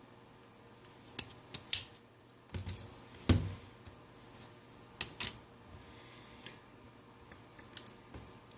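Scattered sharp clicks and light taps from small tools and the plastic parts of a phone being handled during disassembly, the loudest a knock about three seconds in.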